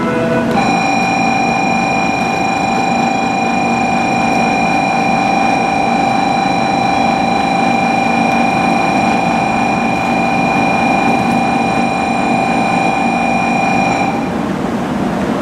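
A Shinkansen platform's electronic departure buzzer sounding one steady, buzzy tone for about thirteen seconds and cutting off sharply near the end, over a steady low hum of the station and idling trains.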